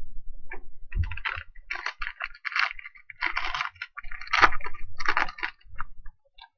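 Foil wrapper of a 2020 Topps Tribute baseball card pack crinkling and tearing as it is pulled open by hand, in a run of irregular crackly bursts.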